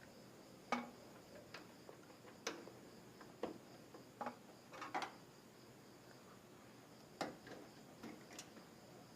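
Light clicks and taps of hands fitting cables and parts inside a desktop computer case, a dozen or so at irregular intervals.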